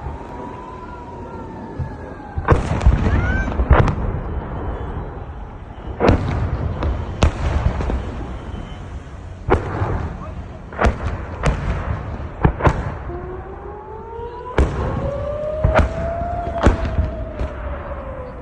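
A rocket-alert siren wails, its pitch gliding down near the start and rising again in the second half, while about a dozen sharp explosions go off one after another, some in quick pairs: the blasts of an incoming rocket barrage.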